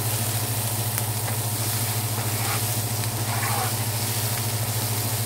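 Onions and garlic sizzling in olive oil in a hot frying pan, over a steady low hum.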